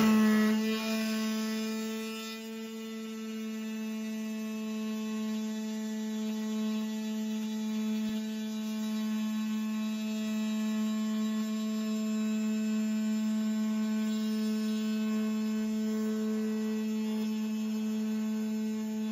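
Makera Carvera Air desktop CNC's spindle turning a single-flute carbide end mill at 12,000 RPM as it cuts a contour through brass plate. The result is a steady, even hum with higher overtones.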